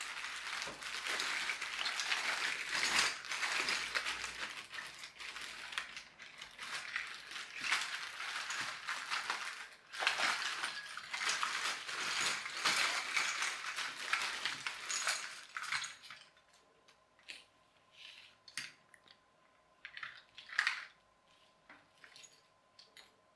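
A clear plastic zip bag crinkling while small plastic toy car parts rattle and clatter inside it as hands rummage through. About two-thirds of the way in this gives way to quieter, separate clicks of small plastic parts being set down on the table.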